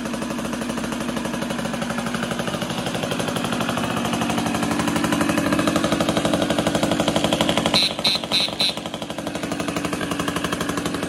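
Freshly rebuilt Morini M1 two-stroke moped engine with Polini parts and a stuffed full-circle crank, running on its first start with a rapid, steady firing beat. It is running super rich. The level builds, then about eight seconds in there are four short high squeaks and the engine drops to a quieter, uneven beat.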